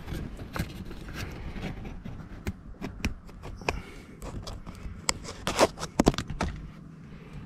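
Irregular small clicks and scrapes of fingers peeling a luminous sticker from its backing sheet and handling it near a car's power window switch, with the loudest cluster of clicks about five to six seconds in.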